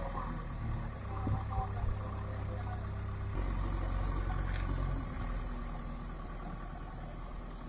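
Diesel engine of a JCB 3DX backhoe loader running steadily at low revs. Its note changes abruptly a little over three seconds in, then continues slightly quieter.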